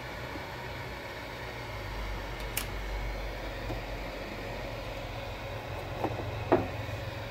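MakerBot Replicator desktop 3D printer humming steadily, its fan still running after the print. A few light clicks and taps come through: one about two and a half seconds in and two close together near the end.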